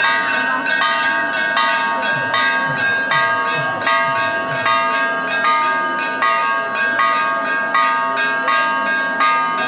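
Large temple bell rung rapidly and without a break, about two to three strikes a second, each stroke's ringing running into the next. It is rung for the temple's kumbhabhishekam consecration.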